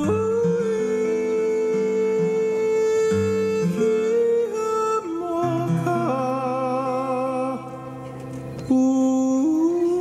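Hawaiian hula song: a slow melody of long, wavering sung notes over plucked acoustic guitar accompaniment.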